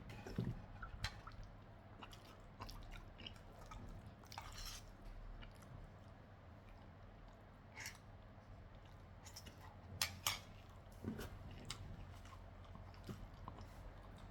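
A person chewing and eating stir-fried noodles, with scattered short wet smacks and clicks; the loudest pair comes about ten seconds in.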